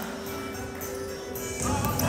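Background music playing, with one long held note through most of the stretch.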